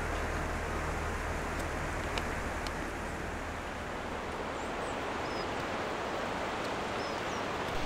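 Steady rushing outdoor ambience, a hiss of wind or distant water, with a few faint, high, short chirps.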